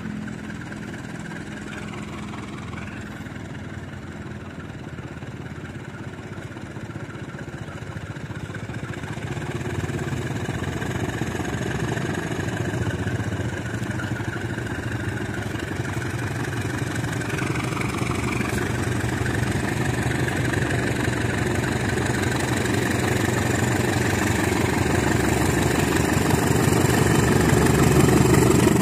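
GE-built CC201 diesel-electric locomotive pulling a passenger train away from the platform, its diesel engine running under power and growing steadily louder as it draws near.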